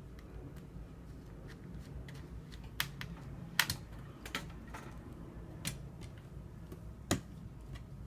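Irregular sharp clicks and taps, about half a dozen scattered over several seconds, from laptop screen parts being handled and set in place during reassembly, over a steady low hum.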